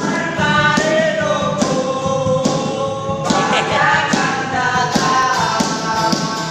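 A song: a voice singing a melody over backing music with a steady percussion beat.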